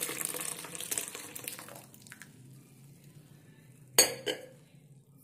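Warm milk poured in a stream from a steel vessel into a steel bowl, splashing and frothing as it is aerated and cooled for setting curd, tapering off over about two seconds. About four seconds in comes a sharp metallic clank of the steel vessel knocking against the bowl, with a lighter second knock just after, the loudest sound here.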